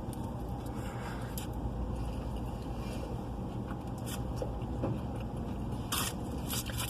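Chewing a mouthful of chicken burrito, with scattered crinkles and clicks from handling the wrapper. A steady low hum of the car cabin runs underneath.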